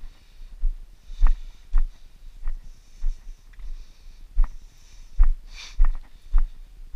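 Footsteps of a hiker walking on a dirt forest trail, thudding at roughly two steps a second, with breathing in between.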